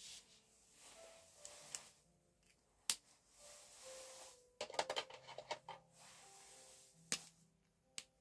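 Felt-tip markers scratching in short strokes on paper, with a few sharp clicks like marker caps snapping and a quick clatter of clicks around the middle, over faint background music.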